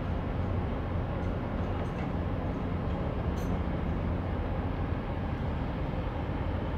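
Steady low drone of a large bulk carrier's diesel machinery as the ship moves slowly past at close range, an even rumble with a deep hum under it.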